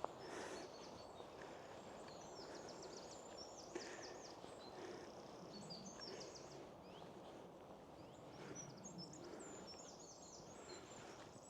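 Faint woodland ambience: small birds singing, with repeated runs of quick, high chirps over a soft background hiss. A couple of small clicks.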